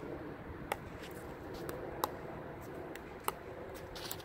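Pickleball dink rally: paddles popping the hollow plastic ball three times, about a second and a quarter apart, with fainter ticks of the ball bouncing on the court between hits.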